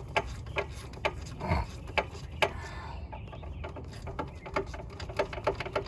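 Hand socket ratchet clicking in short, irregular runs as a 13 mm hub-assembly mounting bolt is worked loose by hand.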